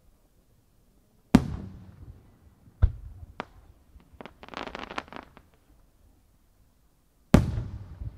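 Aerial firework shells bursting: a loud bang about a second in with a long rolling echo, a second bang and a smaller crack, then a cluster of quick pops, and another loud echoing bang near the end.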